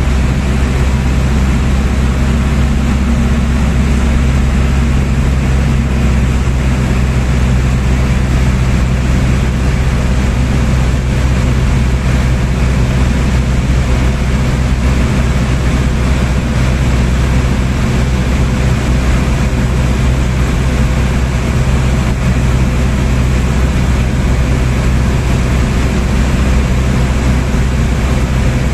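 Steady, loud drone of a light aircraft in flight, engine and rotor or propeller noise heard from inside the cabin, unchanging throughout.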